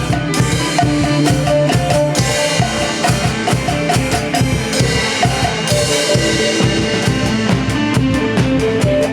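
A band plays an instrumental stretch of a song: a drum kit, with bass drum and snare, keeps a steady beat under held pitched instrument notes.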